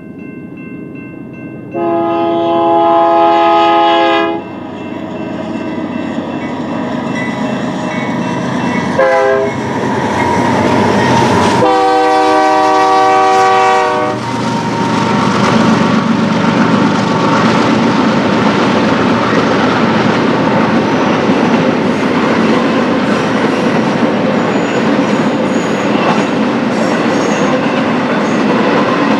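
BNSF intermodal freight train's locomotive horn sounding a chord: a long blast, a quick short tap, then another long blast. The train then rolls past with loud, steady wheel noise and clickety-clack over the rail joints.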